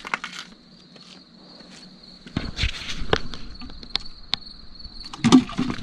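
Steady high chirring of night insects, with scattered clicks, scrapes and knocks of movement on rock. The loudest knocks come about five seconds in.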